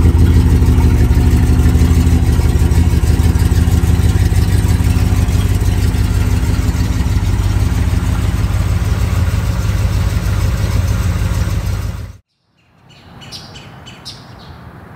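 1968 Chevrolet Chevelle SS 396's big-block V8 running steadily, loud. It cuts off abruptly about twelve seconds in, and after a brief silence birds are chirping.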